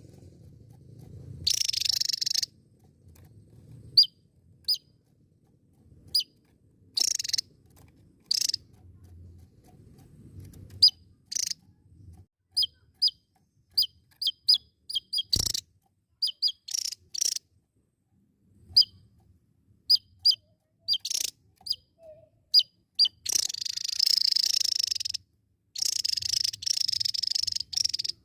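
Javan tesia singing: short, sharp high chirps, singly and in quick runs, alternating with longer harsh buzzing stretches that fill the last few seconds. A single sharp click sounds about halfway through.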